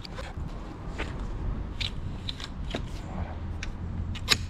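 Bike trailer frame parts being pushed together during assembly: scattered short clicks and knocks, the loudest about four seconds in, as the pieces are fitted into place.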